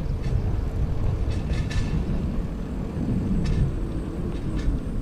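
Wind buffeting a bicycle-mounted GoPro's microphone while riding, a loud, fluctuating low rumble, with a few light rattles from the bike.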